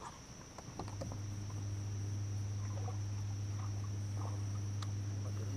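Electric trolling motor switching on about a second in and running with a steady low hum.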